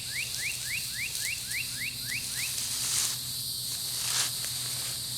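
A songbird singing a quick series of short rising whistled notes, about four a second, that stops about two and a half seconds in. A steady high hiss runs underneath, and two soft clicks come later.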